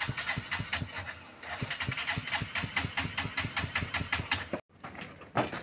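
Motorbike engine idling close by, an even putter of regular beats. The sound drops out for a moment about four and a half seconds in.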